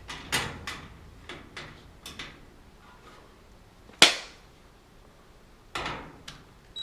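Dryer parts and tools clicking and knocking as they are handled and fitted back together, with one sharp clank about four seconds in.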